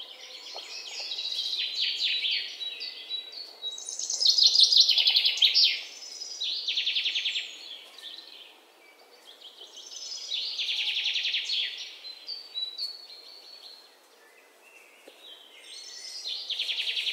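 A songbird singing: phrases of chirps and fast trills, several of them a few seconds apart.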